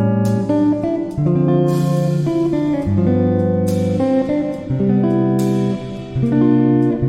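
Dreamy guitar music: plucked chords ringing out, a new chord struck about every second.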